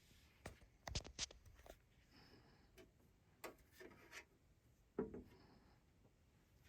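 Faint, irregular clicks, knocks and rubbing of hands handling a turntable, with a cluster of sharp clicks about a second in and a single knock about five seconds in.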